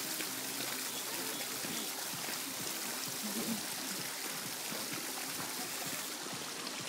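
Steady wash of swimming-pool water stirred by people wading and moving in it.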